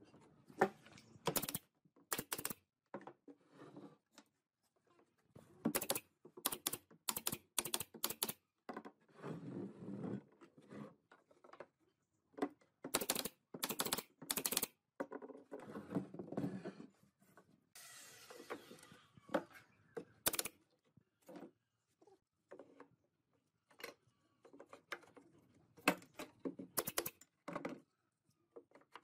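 Irregular sharp clicks and knocks of wooden cabinet parts being fitted together, with a nail gun firing a quick run of shots near the middle, and a few stretches of rubbing between the knocks.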